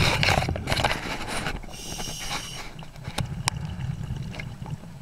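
Scuba diver breathing through a regulator underwater: a rush of exhaled bubbles, then a brief high whine about two seconds in, and a few sharp clicks over a constant low rumble of water on the camera housing.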